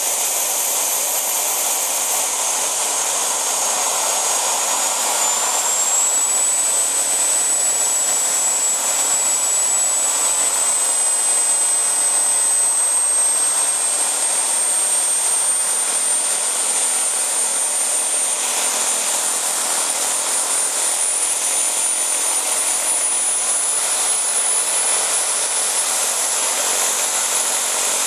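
JetCat PHT2 model helicopter turbine running with a steady rushing noise and a high whine. The whine climbs slowly in pitch as the turbine spools up and the rotors gather speed.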